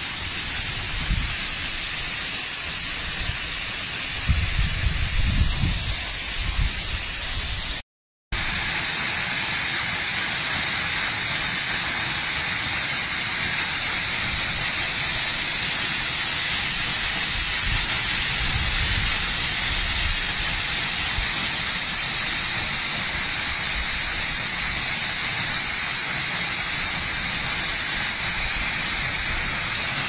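Waterfall splashing down a rock face into a shallow pool: a steady hiss of falling water. There is low rumbling on the microphone around four to six seconds in, and the sound cuts out for a moment just before eight seconds.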